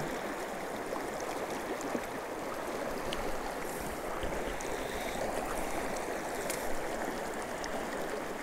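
River water running steadily past a cobble bank: an even rush and babble.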